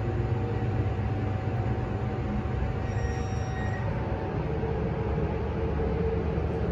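MEI hydraulic elevator car travelling upward, heard from inside the cab: a steady, rumbly low drone with a constant hum, the hum growing stronger a little over halfway through.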